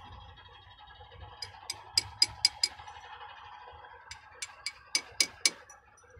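Light metal-on-metal taps, two runs of about six at roughly four a second, as a new oil seal is tapped gently into the steering gear box housing of a Mercedes-Benz Actros to seat it evenly.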